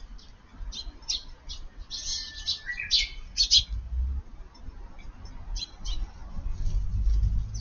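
Eurasian tree sparrows chirping: many short, high chirps in scattered bursts, busiest two to three and a half seconds in, over a low rumble.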